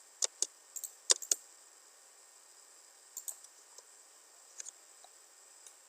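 Computer mouse and keyboard clicking: a quick cluster of about half a dozen sharp clicks in the first second and a half, then a sparser run of clicks from about three seconds in.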